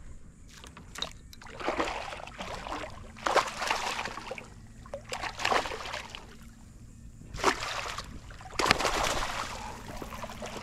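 A hooked fish thrashing at the surface beside a kayak while a landing net is dipped and swept through the water: several separate bursts of splashing, the loudest near the middle and again near the end.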